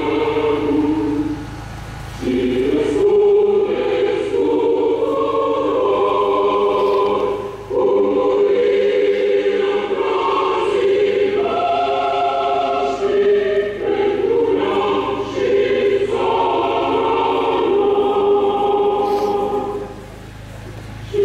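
A choir singing a slow piece in long held notes, with brief breaks between phrases about two seconds in, near eight seconds and just before the end.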